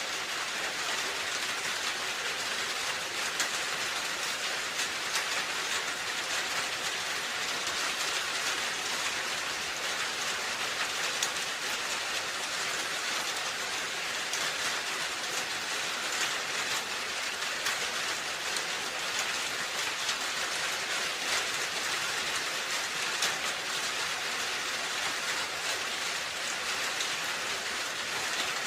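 Steady rain falling on a roof: an even, dense hiss with a fine patter of individual drops that holds at a constant level.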